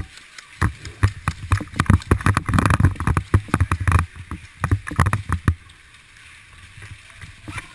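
Irregular knocks, thumps and rattles of a body-mounted GoPro and gear as a player runs, dense and loud for about five seconds, then easing off.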